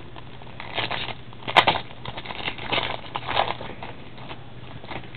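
Foil wrapper of a hockey card pack being torn open and crinkled by hand: a run of crackling starting about a second in, with one sharp snap near the middle as it rips.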